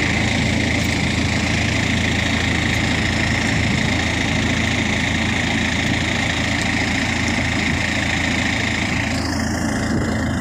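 A fishing launch's inboard engine running steadily, a constant drone.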